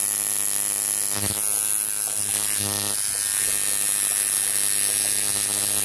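Electric tattoo machine buzzing steadily as its needle works ink into the skin of a wrist.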